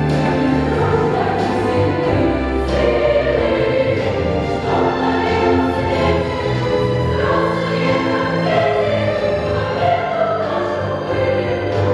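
Children's choir singing a held, flowing choral piece with several voice lines at once, accompanied by grand piano.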